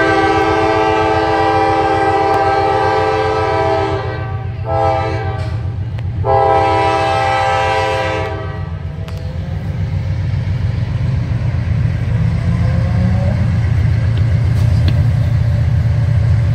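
Norfolk Southern diesel freight locomotive's multi-tone air horn sounding three blasts, long, shorter, then long, ending about eight seconds in. Under it and after it, the locomotive's diesel engine rumbles steadily, growing louder as the train approaches.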